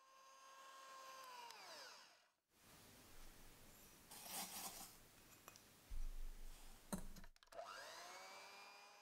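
Electric hand mixer whipping egg whites into meringue in a glass bowl. About two seconds in, its whine falls in pitch as it is switched off. A few seconds of faint knocks and handling sounds follow, then near the end the mixer starts again, its whine rising back up to speed.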